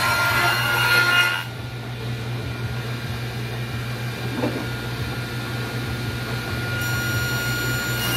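Table saw cutting through the wall of a wooden box, the cut ending sharply about a second and a half in; the blade then spins free over a steady dust collector hum, and the next pass through the wood starts near the end.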